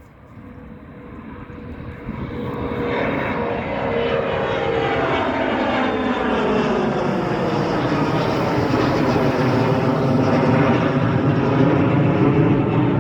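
Jet airliner flying past at the airport, its engine noise growing steadily louder over the first four seconds and then staying loud, with a slow sweeping, phasing quality as it passes.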